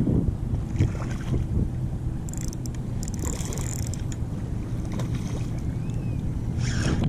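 Wind rumbling steadily on the microphone, with a few short bursts of splashing water.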